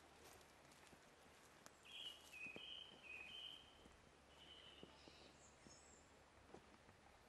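Quiet outdoor ambience with a bird singing faintly: a run of short, clear high notes about two seconds in, then a few more near the middle.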